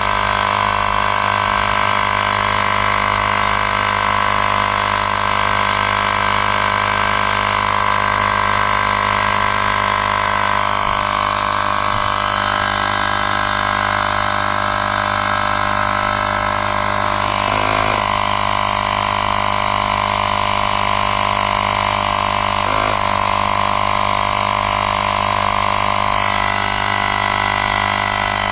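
Cordless portable tyre inflator's small air compressor running steadily, a constant mechanical hum and buzz with a couple of brief wobbles.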